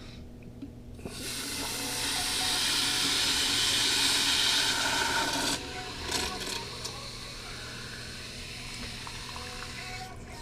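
Fresh water being poured into a water maker's low-pressure filter housing to pre-fill it: a steady rush of water that starts about a second in and cuts off sharply after about five and a half seconds, with a steady low hum underneath.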